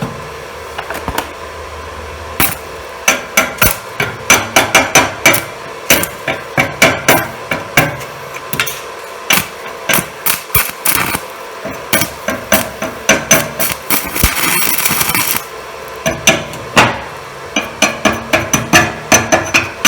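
A UONI 13/55 basic-coated stick electrode tapping and scratching repeatedly against a steel plate in sharp, irregular clicks as the welder tries to strike the arc. About two-thirds of the way in, the arc catches with a short hiss for a second or two, then goes out, and the tapping resumes. The arc is hard to strike on the first attempt.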